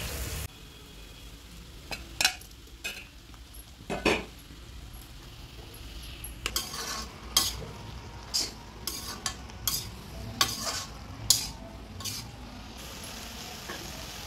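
Metal spatula scraping and knocking against an iron kadhai in irregular strokes as cabbage, potato and peas are stirred while frying, over a soft sizzle. It opens with a brief hiss of water pouring into a pressure cooker that cuts off abruptly.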